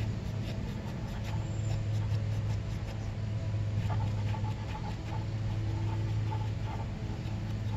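Cloth rag rubbing and scratching over a motorcycle drum-brake backing plate as it is wiped clean of brake dust, over a steady low hum.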